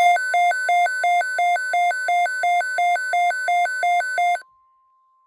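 Electronic emergency alert tone: a warble that switches between a low and a high pitch about three times a second over a steady tone. The warble cuts off suddenly about four and a half seconds in, leaving only the faint steady tone.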